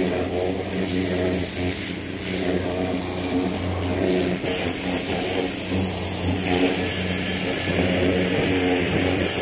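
A motor running steadily, its pitch wavering a little, with a hiss of water spraying under a stand-on mower's cutting deck as the deck is washed out.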